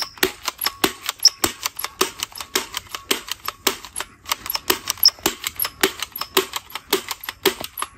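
Toy MP7 submachine gun firing: a rapid, uneven run of sharp clicks, about four to five a second.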